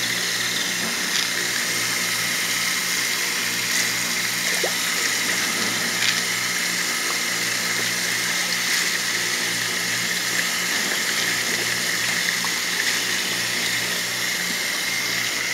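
Steady splashing of water pouring from a PVC return pipe into a tilapia tank, with a low, steady pump hum underneath.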